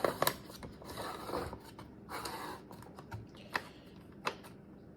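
Scattered small clicks and soft rubbing of plastic and metal parts as a cordless chainsaw's bar and chain are handled and tightened by hand.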